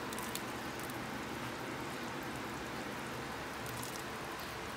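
A pot of meat broth simmering on a gas stove, with a steady bubbling.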